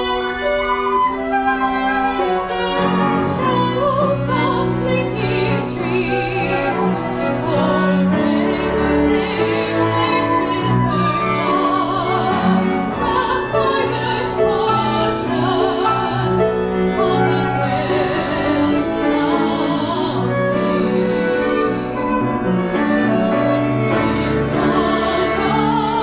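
Live chamber music in an art-song style: a mezzo-soprano singing with vibrato over an ensemble of bowed strings (violin, viola, cello, double bass), flute, clarinet and piano. Lower parts come in about two and a half seconds in, filling out the sound.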